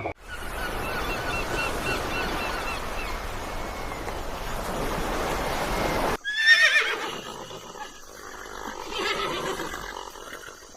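Horse whinnying: a quavering call of rapid repeated pulses over a noisy background. About six seconds in the audio cuts to a short call that falls in pitch, followed by quieter sound.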